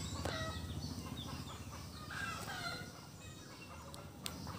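Chickens clucking and calling in short, repeated falling calls over a low steady background hum, with a short click near the end.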